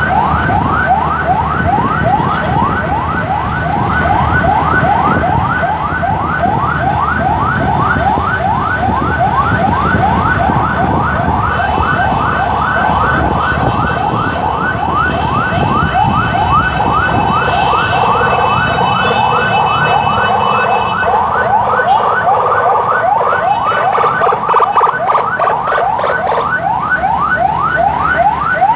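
Emergency siren yelping: fast rising sweeps, about three a second, repeated without a break, over the low rumble of traffic and the escorting motorcycle.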